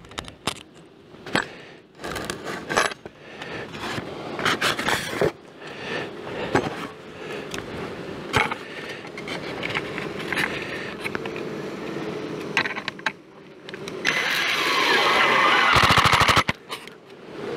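Scattered clicks and rustling from handling screws, then near the end an impact driver runs up and drives a screw into an insulating foam panel on the hive with a loud, rapid clattering.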